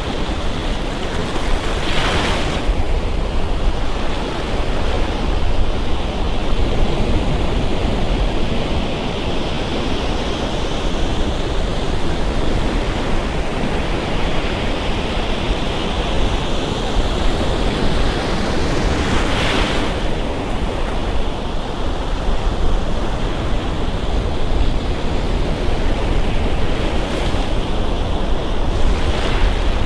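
Surf on a Gulf Coast beach: a continuous wash of breaking waves, with brief louder surges a few times as waves crash. A low wind rumble on the microphone runs underneath.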